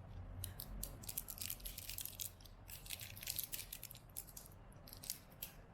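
Many small, quick clicks and light rattles of hard plastic headphone parts being handled and picked at, coming in irregular clusters.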